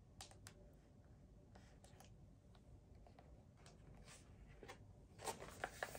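Near silence with a few faint small clicks, then near the end the quick rustle and flick of a hardcover picture book's paper page being turned.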